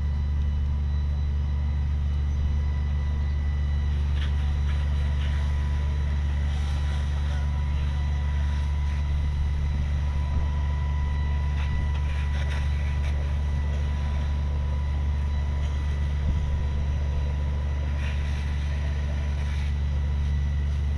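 Fire truck's diesel engine running steadily while it pumps water, a constant low drone with a faint high whine above it.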